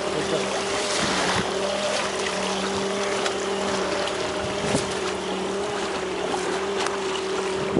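A boat engine runs with a steady hum, over a hiss of wind and water.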